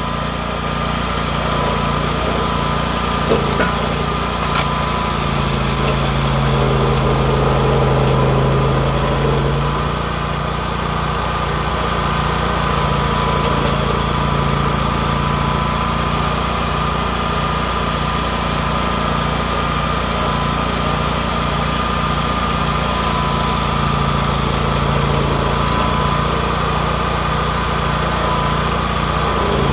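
Rayco RG 1625 stump grinder running steadily, its cutter wheel with Greenteeth grinding into a stump. The engine note swells briefly a few seconds in.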